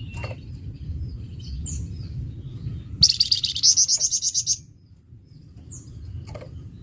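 Flamboyan songbird singing harsh, chattering song: a few short high chirps, then about three seconds in a loud, fast, rasping trill lasting about a second and a half. A steady low rumble runs underneath.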